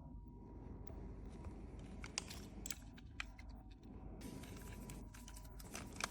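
Faint, scattered small clicks and taps of lock hardware being handled and fitted, over a low steady hum. The clicks grow more frequent from about two seconds in.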